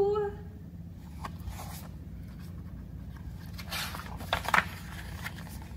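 Picture book pages turned by hand: paper rustling and flapping, loudest about four seconds in, over a low steady hum.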